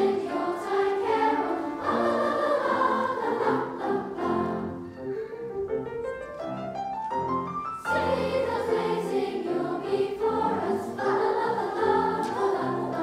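A large children's choir singing with grand piano accompaniment, with a quick rising run of notes in the middle.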